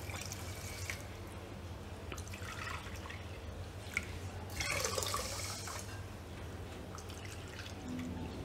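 Water poured from a steel vessel into a plastic measuring cup and from the cup onto sugar in a steel pot, splashing and trickling in several pours; the loudest pour comes about halfway through. Cupfuls of water are being measured into sugar to make sugar syrup.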